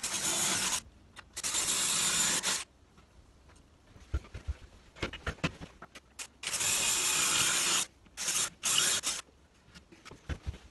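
Power drill run in five short bursts of up to about a second and a half, drilling through a timber batten into the wall, with small knocks and clicks between the bursts.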